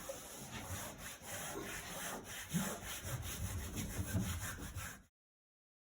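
Irregular rubbing and scraping noise that cuts off abruptly about five seconds in.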